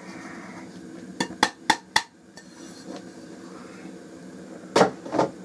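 Sharp knocks and clinks of a container or utensil against a cooking pot as brazilwood shavings are tipped into simmering vinegar. There are four quick knocks about a second in and two louder ones near the end, over a steady low hum.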